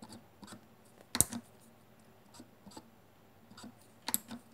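Scattered light plastic clicks and taps, two sharper ones about a second in and near the end, from a felt-tip marker tapping and drawing on the small rocker switches of a USB hub.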